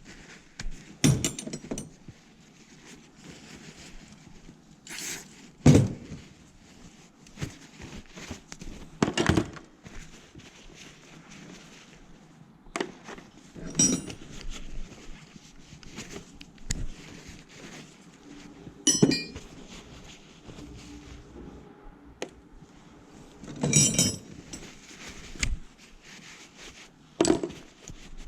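Metal hand tools being picked up and set down, clinking and clanking at irregular intervals, a few sharper ringing clinks among duller knocks.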